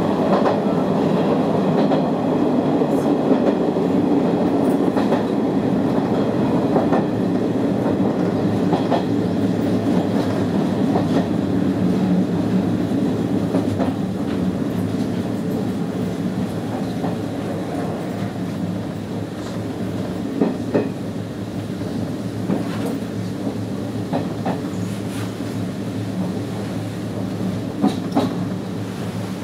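Izu-Hakone Railway 3000-series electric train running, heard from the cab: a steady rumble and hum of wheels on rail with a light clickety-clack. There are a few sharper clacks about twenty seconds in and again near the end.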